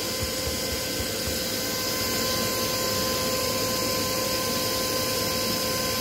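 Vacuum cleaner running steadily: a constant rush of air with a steady motor whine.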